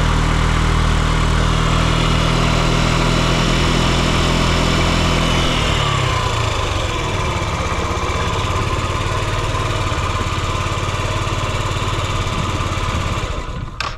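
Yamaha Gear UA08A scooter's 50cc four-stroke single-cylinder engine running steadily, with no abnormal noise. About six seconds in, its even note changes and turns rougher and less even.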